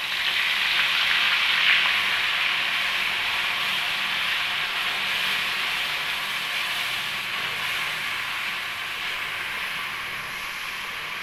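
Onion and green-chilli paste sizzling loudly as it fries in hot ghee in a kadai. The hiss is strongest in the first couple of seconds after the wet paste goes in, then slowly dies down as it is stirred.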